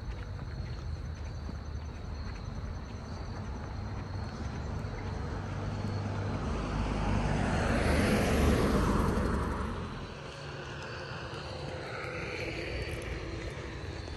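A vehicle passing by, its noise swelling to a peak about eight seconds in and fading away soon after, over a steady low outdoor rumble.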